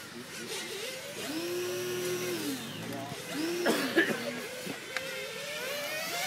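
1/10 scale radio-controlled touring cars racing round the track, their small motors whining and rising and falling in pitch as they speed up and brake through the corners.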